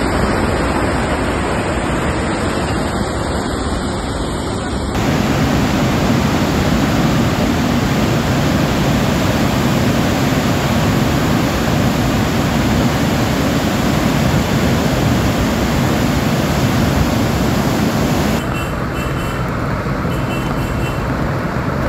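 Teesta river in flash flood: the loud, steady rush of a muddy torrent. The rush changes in tone about five seconds in and drops a little in level near the end.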